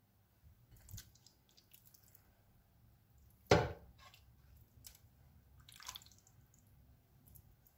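Raw marinated chicken drumsticks set down one at a time on the grill plate of an air fryer basket: a few soft, wet knocks, with one louder knock about three and a half seconds in.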